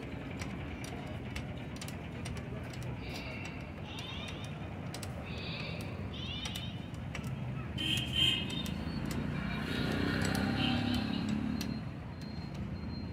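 Light metal clinks of a ring spanner working on a motorcycle engine's crankshaft and timing chain, over a steady hum of outdoor traffic and background voices that swells louder for a few seconds near the end.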